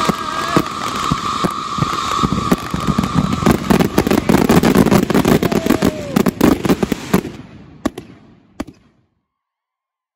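Fireworks finale barrage: many aerial shell bursts and crackling stars going off in rapid, overlapping succession for about seven seconds. The barrage then fades to two last isolated bangs and cuts to silence.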